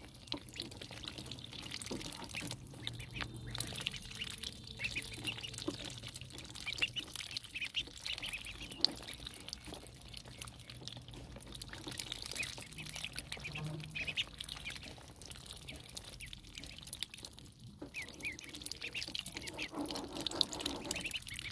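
A group of ducklings peeping continually with many short, high calls, while dabbling with their bills in a shallow basin of water, with faint splashing and slurping.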